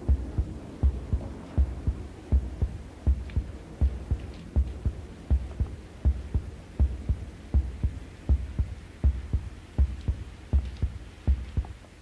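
Heartbeat sound effect from a Halloween sound-effects cassette: a slow, steady lub-dub of low thumps, about eighty beats a minute.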